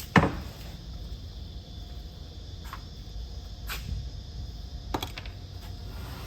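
Hand-tool work on hydraulic hose fittings: a sharp knock with a short ring just after the start, then a few lighter clicks and taps, over a low steady rumble.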